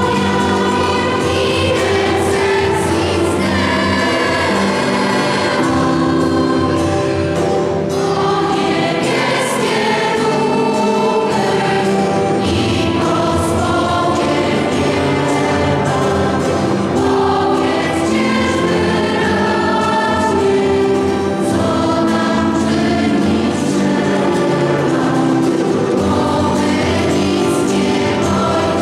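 Parish choir singing a Polish Christmas carol, several voices together in a continuous sung passage.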